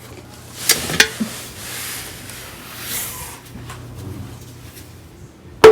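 Handling noise from a dusty old toy being examined: two light clicks about a second in, then soft rubbing.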